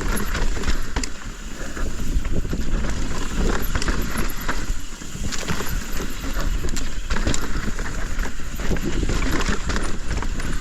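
Yeti SB165 mountain bike descending a steep, loose, dry trail: tyres on dirt and rocks, with many sharp rattles and knocks from the bike over rough ground, and a constant low rumble of wind on the microphone.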